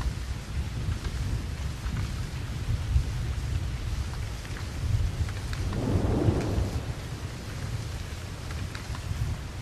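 Rain falling steadily with scattered drop ticks over a continuous low thunder rumble; the rumble swells briefly about six seconds in.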